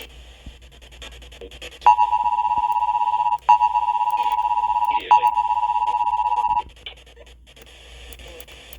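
Emergency Alert System attention signal: a steady, harsh two-tone sound in three stretches of about a second and a half each, broken by sharp clicks, starting about two seconds in, with faint crackle before and after. It signals that an emergency alert, here a severe thunderstorm warning, is coming.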